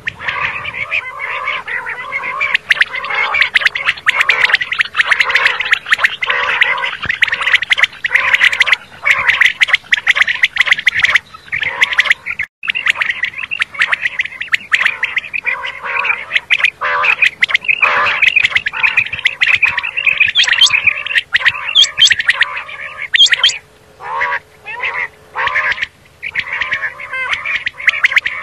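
Common quail calling in a dense, rapid chatter, as of several birds at once, with a few short breaks near the end.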